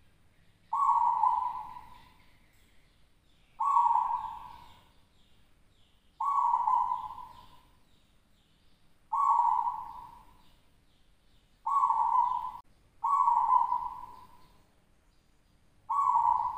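Caged zebra dove (local perkutut) singing: repeated cooing phrases, about seven in all, one every two to three seconds, each starting sharply and trailing off.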